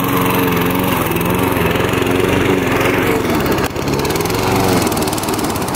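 Gas-powered push lawn mower running as it cuts grass on an embankment, its engine pitch wavering up and down.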